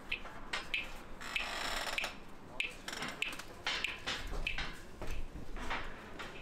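Footsteps of a person walking at a steady pace, about a step every 0.6 seconds, with a brief rush of hiss about a second and a half in.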